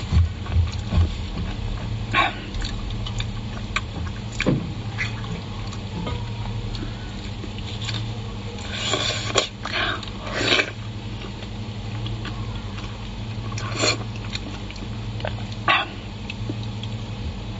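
Wet chewing and lip-smacking of a person eating soft lamb brain wrapped in tripe, with scattered short clicks and squelches over a steady low hum.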